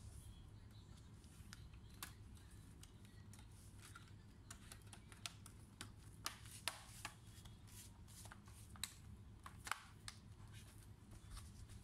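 Faint sharp clicks and snaps of the Acer Swift 3 laptop's bottom cover being pressed down around its edges, its clips snapping into place; the snaps come thickest and loudest from about four seconds in to near the end, several a second at times.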